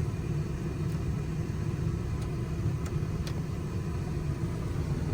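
1998 Chevrolet truck engine idling steadily, a low rumble heard from inside the cab, with a few faint clicks.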